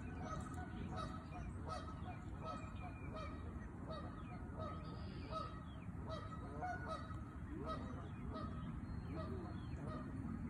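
Eastern gray squirrel gnawing a nut open with its teeth, a scatter of small sharp cracks. Repeated short bird calls sound in the background, about once or twice a second.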